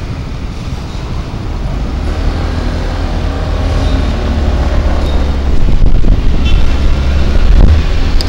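Wind rumbling on the microphone, along with road and traffic noise, from a rider moving along a city street on a two-wheeler. It grows steadily louder as speed builds.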